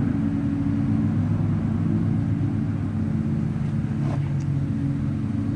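Honey bees buzzing around an open hive, a steady, even hum of many wingbeats from a calm colony.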